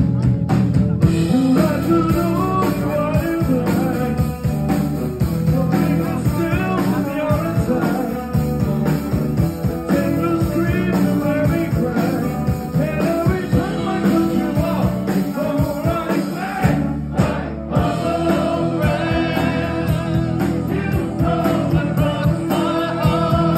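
Live rock band playing: electric guitars, drums and keyboards with a lead vocal. The band drops out for a brief break about two-thirds of the way through, then comes back in.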